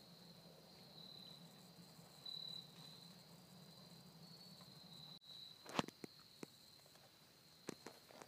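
Faint, steady, high-pitched insect trill in woodland. A few sharp clicks fall in the second half, the loudest about six seconds in.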